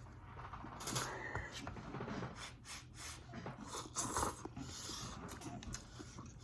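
Faint eating sounds as ramen noodles are tasted: scattered short scrapes and clicks of a utensil in the bowl, with soft mouth and chewing noises.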